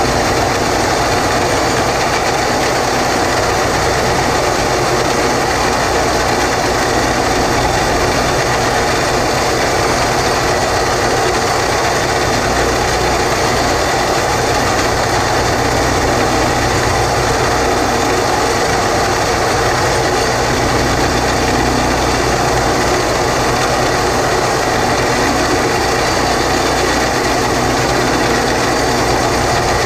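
Horizontal boring machine's engine running steadily under load, turning the drill rod as a back reamer bores through a concrete block.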